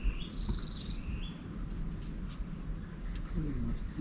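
A wild bird calling a short whistled phrase of two or three stepped notes, repeated about once a second, over a steady low rumble.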